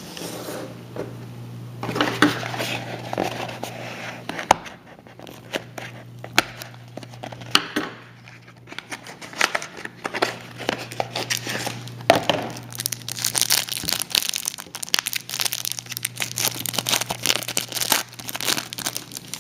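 A foil trading-card pack wrapper being torn open and crinkled, and the cards handled. Irregular crackling and rustling throughout, busiest in the second half.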